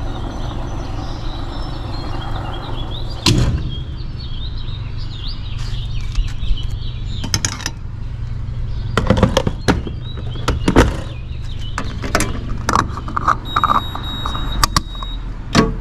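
Refuelling a car at a gas pump: a steady low hum under scattered clicks and knocks of the nozzle and fuel cap being handled, with a high steady beep lasting about a second and a half near the end.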